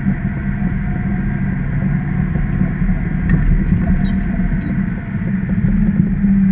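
Acco garbage truck's diesel engine running steadily while driving, heard from inside the cab as a low drone with a few faint rattles.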